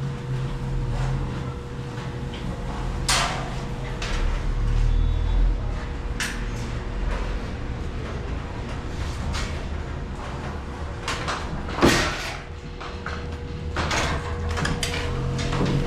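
Scattered sharp knocks and scrapes of metal ceiling framing being handled and fixed, over a steady low rumble and a faint steady hum.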